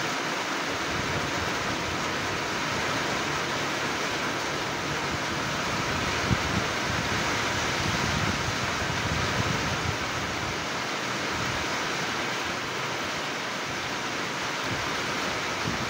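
Steady rain falling on a flooded grassy field, an even hiss throughout. A low rumble swells under it in the middle, with one brief louder moment about six seconds in.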